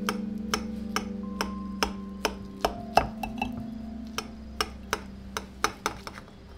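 A knife cutting down through the crisp baked grated-potato crust of a casserole, giving a run of sharp crunchy clicks, about two or three a second, a few coming in quick flurries. Soft music with held notes plays underneath.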